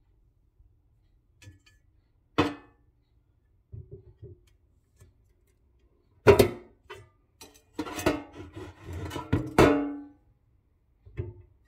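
Cosori air fryer's crisper plate being pried out of its metal basket by hand: a few sharp knocks with short metallic ringing, then a longer stretch of clattering about two thirds of the way in as the plate rattles against the basket.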